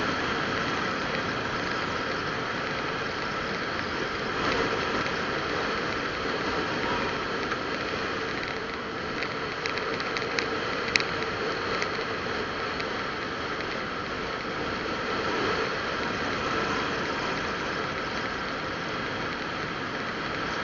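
Moving vehicle on a road: a steady rush of engine, wind and road noise, with a few short clicks between about nine and twelve seconds in, the sharpest near eleven seconds.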